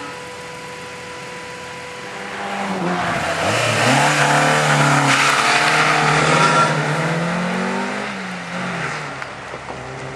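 Slalom car engine revving hard as the car is driven through cones close by, its pitch rising and falling with throttle changes, with tyre noise. It is loudest in the middle, then fades as the car pulls away.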